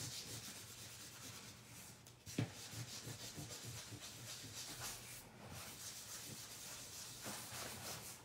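A towel rubbing back and forth over cardstock in quick scrubbing strokes, wiping red Distress Oxide ink off white heat embossing, with a single light knock about two and a half seconds in.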